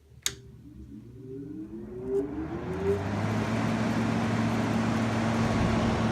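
A click, then the fan motor of a GE 5010 BTU window air conditioner spinning up with a rising whine over about three seconds, the 'woo-woo' sound it makes when it starts, before settling into a steady hum with rushing air. Fan only; the compressor is not running.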